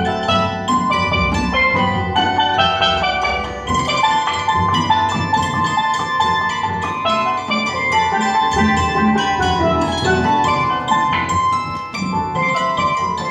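A hammered dulcimer and steel pans play a quick, bright tune together in dense struck notes, with a low drum keeping the beat underneath.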